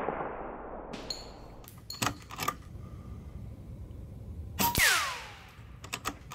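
A sharp crack as a .25-calibre air-rifle pellet strikes a penny, followed by a falling ricochet whine, the 'cowboy sound' of a high-powered pellet glancing off metal. A few sharp clicks come earlier and near the end.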